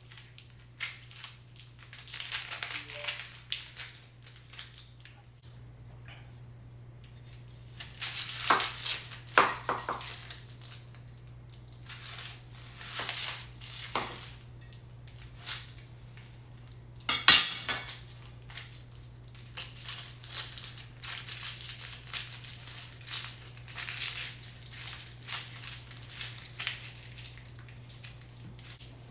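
Dry, papery onion skins crackling and crunching in irregular bursts as gloved hands peel onions, with a chef's knife cutting into the onion and knocking on a plastic cutting board now and then. The loudest crunch comes a little past halfway.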